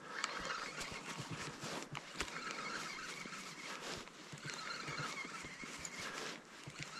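Fishing reel being wound in during a retrieve, its gears whirring in spells of about a second, with scattered clicks and knocks from handling the rod and reel.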